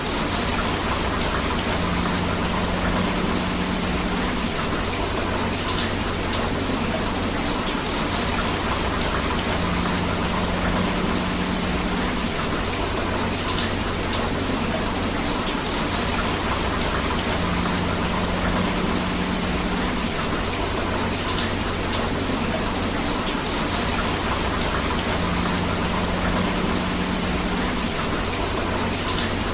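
Steady rain falling together with rushing river water: an even, unbroken hiss of water noise.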